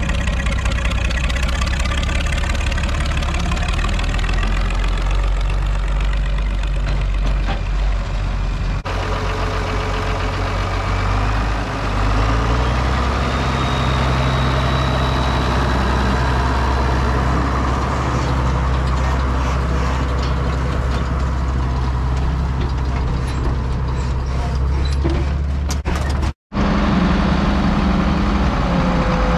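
International Harvester tractor engines running steadily, shot after shot: first a tractor hitched to a round baler, then the 1256's turbo diesel powering a forage chopper, its note rising about twelve seconds in, then the 1066 Turbo diesel at the bagger after a split-second gap.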